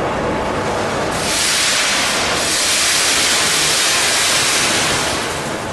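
Plastic flakes pouring from a container into the feed hopper of a plastic colour sorter: a loud rushing hiss that starts about a second in and fades out near the end, over the steady running noise of the machine.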